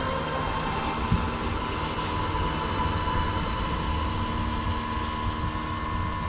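Motor of a small wooden boat running steadily under way, a constant drone with a low hum, with one brief thump about a second in.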